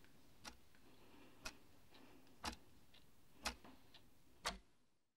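A clock ticking once a second, with fainter ticks in between, the ticks growing louder toward the end before the sound cuts off into silence.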